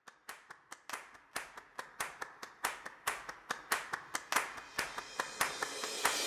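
Hand clapping that starts as a few sparse, quiet claps and gets louder and quicker, thickening toward applause near the end.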